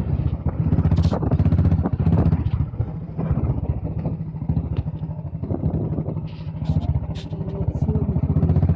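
Royal Enfield Bullet motorcycle's single-cylinder engine running off-road, its level rising and falling.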